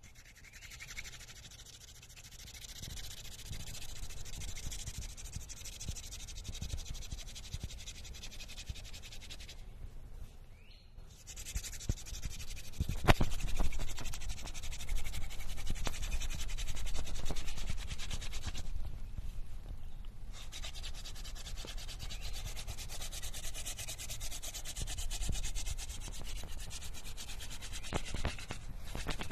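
Hand-drill friction fire: a goldenrod spindle spun between the palms grinds in a wooden hearth board, making a steady dry rubbing. Two short breaks come about ten and nineteen seconds in, and there is a sharp click about thirteen seconds in.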